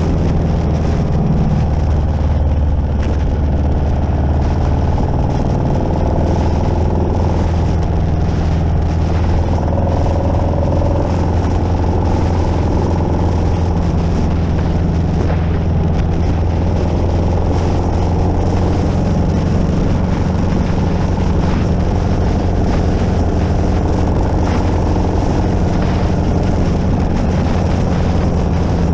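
Harley-Davidson Street Glide's V-twin engine running steadily while cruising on the road, heard close up. Its note shifts about five seconds in, then holds even.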